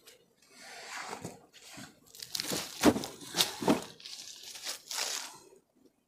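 Dry leaf litter and brush crunching and rustling in a run of crackling bursts as someone shifts about and a backpack is set down on the forest floor, loudest between about two and four seconds in.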